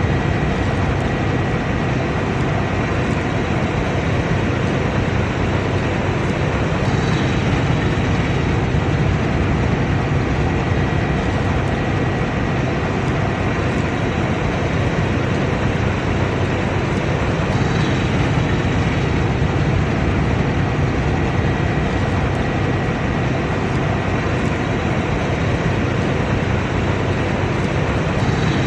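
Combine harvester running steadily under load, a dense unbroken machine noise with a faint high steady whine over it.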